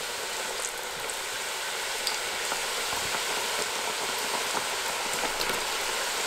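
Mathri (flour-dough strips) deep-frying in hot oil: a steady sizzle with a few small pops, growing slightly louder.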